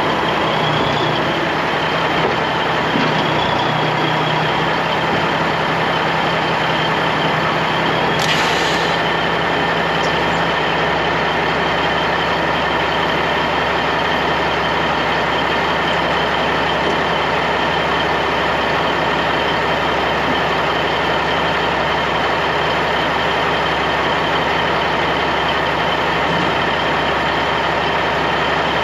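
Semi-truck's diesel engine idling steadily, with a short hiss of released air about eight seconds in.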